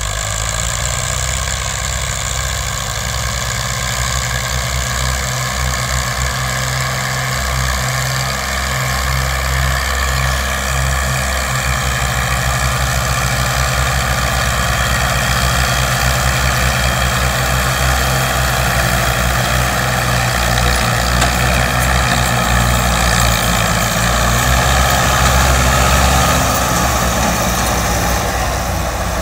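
Tractor diesel engine running steadily under heavy load, hauling a trolley piled high with sugarcane. It grows a little louder late on, then eases near the end.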